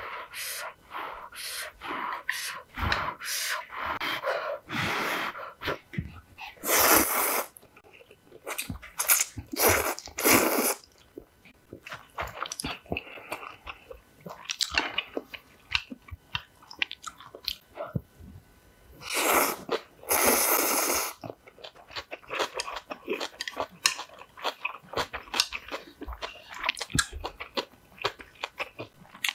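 Close-up eating sounds of spicy instant ramen: wet chewing and smacking, broken by several long slurps of noodles.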